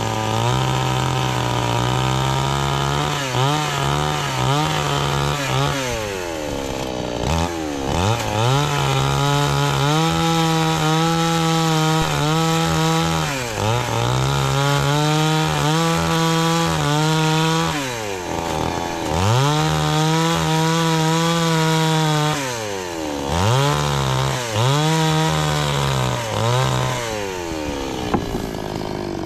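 Two-stroke chainsaw cutting into a thick wooden slab. It revs up to full speed and holds for several seconds while the chain bites, then drops back toward idle, about five times over.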